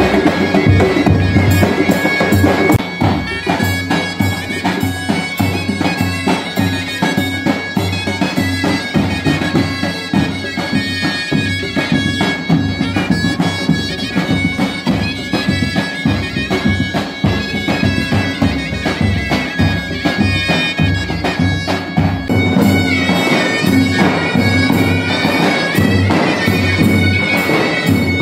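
Zurna and davul music: several shrill double-reed zurnas play a folk dance tune over a steady beat on the davul bass drums.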